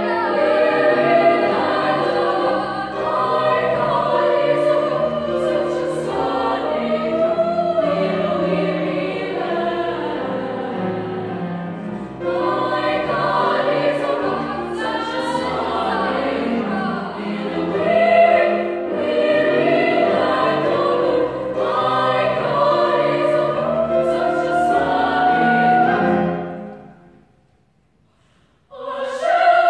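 Women's choir singing in parts. About 27 seconds in the singing fades away into a brief silence, then the choir comes back in strongly just before the end.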